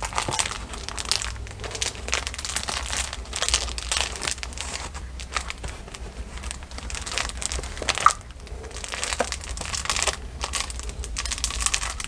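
A cloth bandage being wound tightly round a rolled-up fabric bundle, with irregular rustling and crinkling of cloth and plastic sheeting under the hands. A short, sharp tap comes about eight seconds in.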